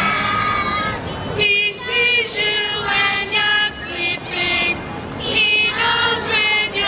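A group of high voices singing together through a loudspeaker, with held, wavering notes.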